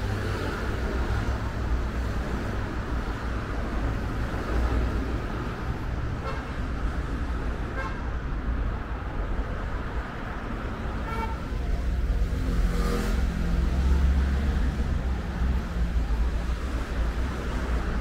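City street traffic: cars and other vehicles running past with a steady low rumble, which grows louder about two-thirds of the way through as a vehicle comes close. A few short pitched sounds break in along the way.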